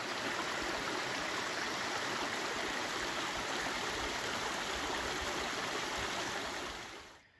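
Stream water flowing steadily, a constant rushing hiss that fades out near the end.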